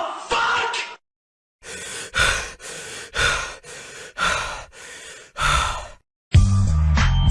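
A person breathing heavily in and out, about four breaths roughly a second apart, each exhale louder than the inhale. Near the end a funky music clip cuts in loudly.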